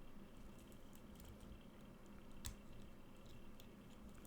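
Faint, scattered clicks of a lock pick working the pins of a pin-tumbler challenge lock held in a false set, with one sharper click about two and a half seconds in.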